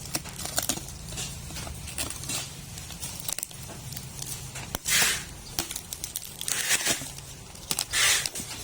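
Packaging being torn open and handled: scattered crackles and clicks, with three louder ripping sounds in the second half.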